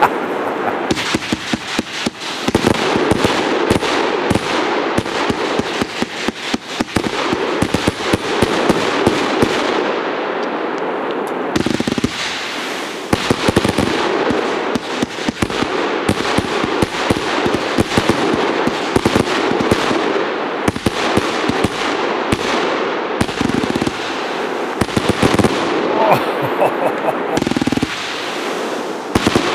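A Funke Twilight 100-shot, 30 mm compound fireworks cake firing in rapid succession: a dense, nearly unbroken volley of sharp launch and burst reports.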